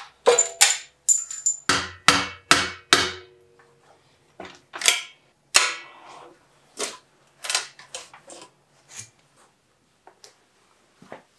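Hammer blows on a steel bike frame to break loose a seized seat post: a quick run of about three sharp metal knocks a second, some leaving a short ringing note, then slower, fainter knocks.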